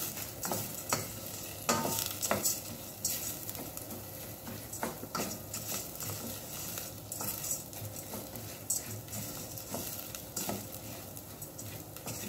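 A wooden spoon stirring rice grains in hot oil in a stainless steel saucepan, with irregular scrapes and knocks against the pan over a light sizzle: the rice being toasted until translucent for a pilaf.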